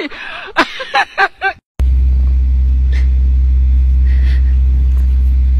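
Excited voices or calls for about a second and a half, then, after a brief gap, a loud, steady low hum that starts abruptly and holds at one level, with only faint sounds over it.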